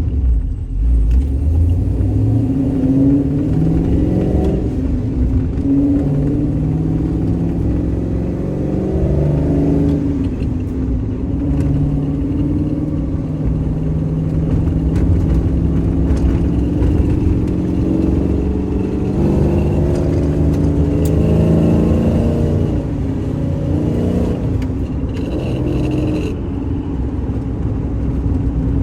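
Pickup truck engine pulling under acceleration through a six-speed manual gearbox. Its pitch climbs over the first few seconds, then holds steady with several rises and drops as it changes speed.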